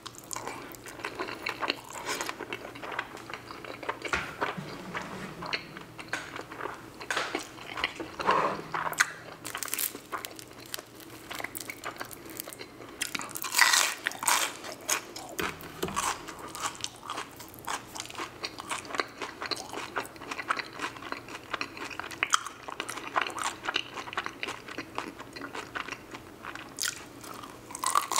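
Close-miked eating: wet chewing of fettuccine in cream sauce, then crisp bites and crunching of the fried crust of a Jollibee peach mango pie, with the loudest crunches a little after halfway.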